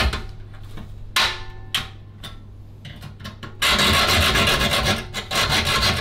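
Junior hacksaw with a steel blade cutting through the metal front panel of an eGPU enclosure: a few slow, separate strokes at first, then about three and a half seconds in, fast continuous sawing.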